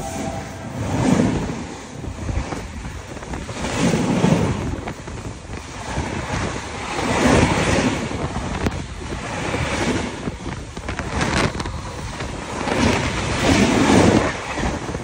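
Rushing wind and rumble from a moving passenger train, with wind buffeting the microphone in swells every few seconds.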